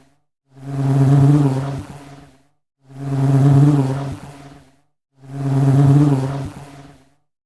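Honey bee buzzing in flight, a looped sound effect: a pitched buzz that swells up and fades away over about two seconds, heard three times in a row with short silences between.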